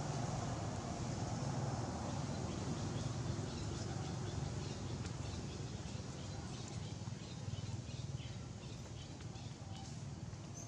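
Steady outdoor background noise with a low hum. Faint, scattered short chirps come in from about three seconds in.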